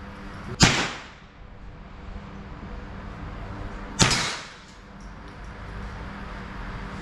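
Two gunshots on a firing range, about three and a half seconds apart, each a sharp crack followed by a short fading echo.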